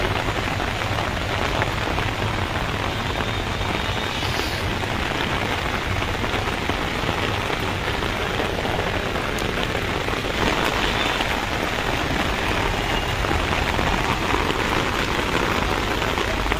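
Heavy rain pouring steadily onto a flooded river, a dense even hiss with a low steady rumble underneath.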